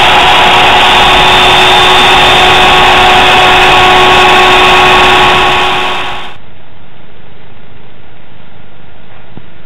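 Router spindle of a home-built CNC router running at a steady high speed while carving MDF, a loud steady whine with several fixed pitches. About six seconds in it cuts off, leaving a quieter steady hiss.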